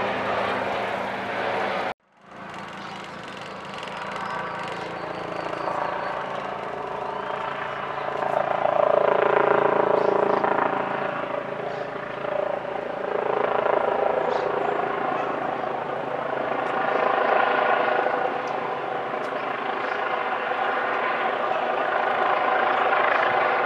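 Airbus Helicopters EC135 twin-turbine helicopter flying overhead: a steady rotor and engine hum of many layered tones, rising and falling in loudness as it moves, loudest a little before the middle. The sound cuts out abruptly about two seconds in and fades back up.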